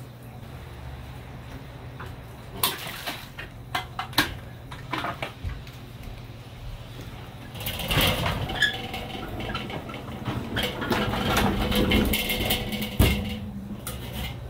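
Charcoal kettle grill: a few scattered metal clanks, then its frame rattles and its wheels rumble over wooden deck boards for about five seconds as it is rolled along, ending in a sharp knock as it is set down.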